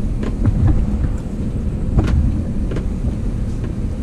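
Low rumble of a truck rolling slowly over rough ground, with scattered knocks and rattles, the sharpest about two seconds in.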